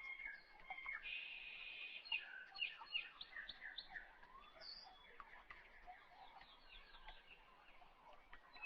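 Faint birdsong: many short chirps and quick runs of repeated notes, with a buzzy trill about a second in.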